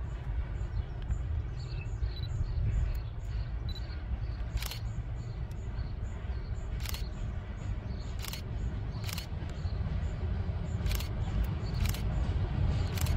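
Low rumble of an approaching class 242 electric locomotive and its freight train, growing louder near the end. Over it, about seven sharp, unevenly spaced clicks, like a camera shutter.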